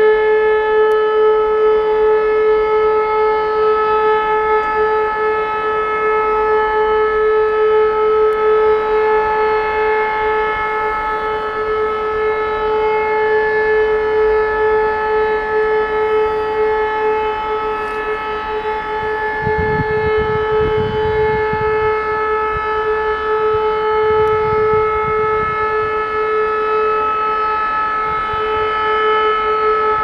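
Several E57 electromechanical motor sirens sounding the German all-clear (Entwarnung) signal: one steady, unbroken tone held at a constant pitch, not rising and falling. Sirens at slightly different pitches overlap.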